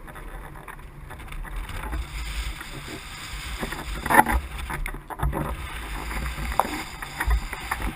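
Seawater splashing and sloshing close by over a low, steady rumble in the surf, with a louder splash about four seconds in.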